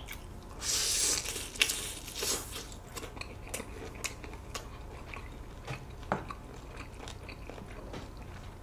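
Slurping spicy mixed barley noodles in a noisy rush about half a second in and again briefly near two seconds, then wet chewing with small scattered clicks.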